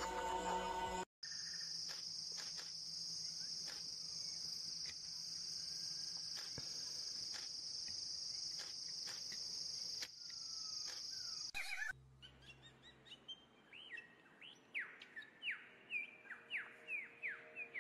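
Nature-sound recording: a steady, high-pitched insect drone with faint ticks for about ten seconds, which cuts off abruptly. Then comes a quick series of short, downward-sliding bird chirps, two or three a second.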